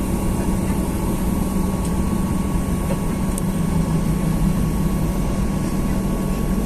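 Boeing 737-800's CFM56 jet engines running at low taxi power, heard from inside the passenger cabin as a steady low drone with a thin steady whine above it.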